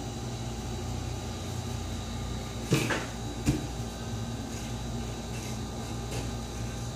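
Two sharp knocks about a second apart, near the middle, as a hand and pencil come down on a plastic folding table. Under them runs a steady low hum of room noise.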